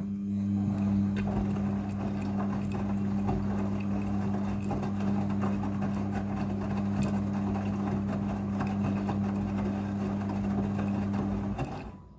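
Midea front-loading washing machine running during its rinse: a steady electric hum with water and tumbling noise over it, switching on suddenly and cutting off abruptly near the end.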